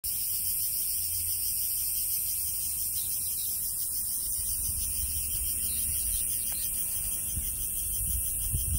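Chorus of cicadas buzzing steadily, a high, pulsing drone, with a low rumble underneath.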